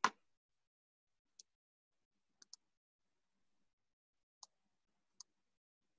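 A few faint computer mouse clicks in near silence, two of them in quick succession about two and a half seconds in.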